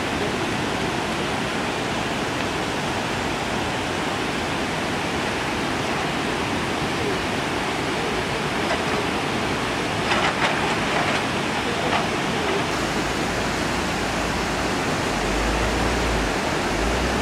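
Steady rushing noise of a flood-swollen river in spate. A low rumble joins in during the last few seconds.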